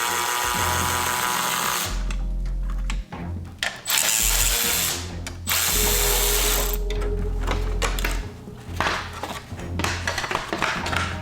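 A power tool run in several short bursts of a second or two, backing out bolts while damaged body panels are removed, over background music.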